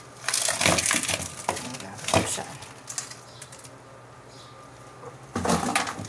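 Rustling of pothos leaves and crunching of soil as the plant is worked loose and pulled out of its plastic pot, in irregular bursts with a sharper knock about two seconds in and another burst of rustling near the end.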